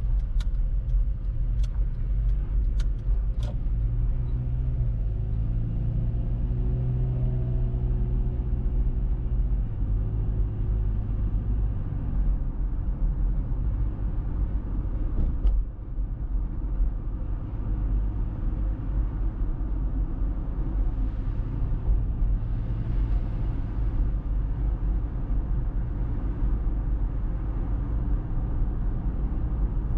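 A car driving: a few sharp clicks in the first few seconds, then the engine note rises as the car pulls away and gathers speed, settling into a steady low tyre and road rumble while cruising.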